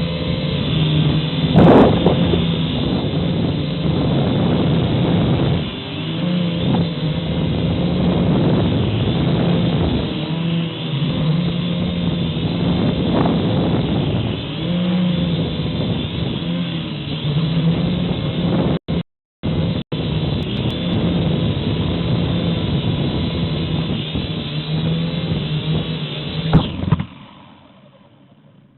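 Syma X5HW quadcopter's small electric motors and propellers buzzing steadily in flight, picked up by its onboard camera microphone, with wind rushing over it. The sound drops out briefly twice about two-thirds of the way through and fades away near the end.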